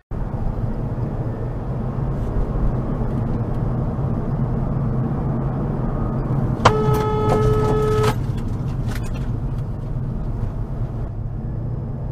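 Steady road and engine noise inside a moving car's cabin. About two thirds of the way in, a car horn sounds in one blast of about a second and a half.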